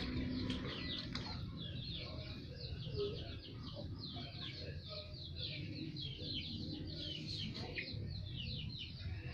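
Small birds chirping: many short, high, falling chirps overlapping densely.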